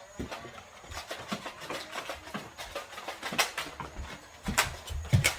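Irregular clicks, knocks and thuds from a Nerf dart battle: toy blasters being fired and handled, and foam darts striking things. The loudest knocks and a low thud come near the end.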